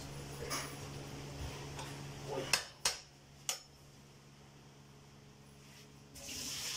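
A metal slotted spoon stirs soaked rice in a large aluminium pot, then knocks against the pot in three sharp clinks about halfway through. Near the end a hiss of water pouring into the pot begins.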